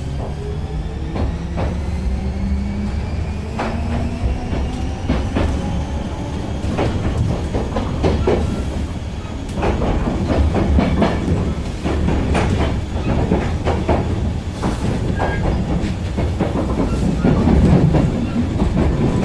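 Electric commuter train heard from inside the passenger car as it pulls away: the traction motors' whine rises in pitch as it gathers speed, then the wheels click and rumble over the rail joints.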